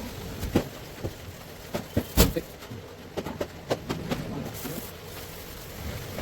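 A few scattered sharp clicks and knocks, the loudest about two seconds in, over low background noise.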